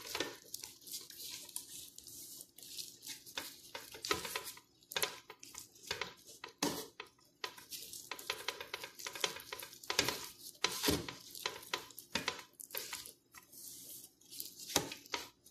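Plastic-gloved hands rubbing marinade over a raw whole chicken: irregular crinkling and rustling of the thin disposable gloves and squishing of the sauce-coated skin, with a few louder knocks.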